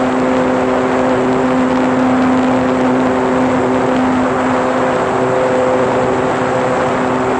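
RC model airplane's motor and propeller running at a steady pitch, recorded by a phone mounted on the plane, over heavy rushing air noise from flight.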